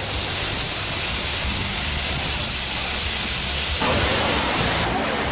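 Jet engines of an American Airlines twin-engine jetliner making a loud, steady rushing hiss of jet blast. About four seconds in the sound changes abruptly.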